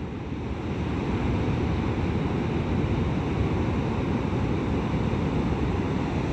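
Heavy ocean surf breaking on a beach: a steady, low rushing roar of big waves, mixed with wind on the microphone.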